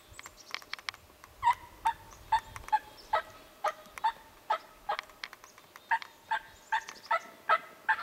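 Turkey yelping: a series of short, evenly spaced yelps, about two or three a second, nine in a row, then a brief pause and five more.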